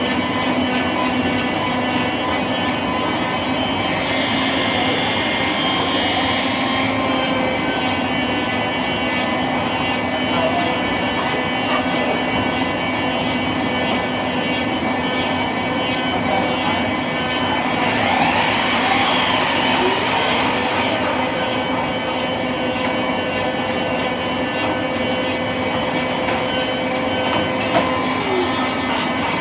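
Shop vacuum running steadily without a break: an unbroken whine over a constant rush of noise.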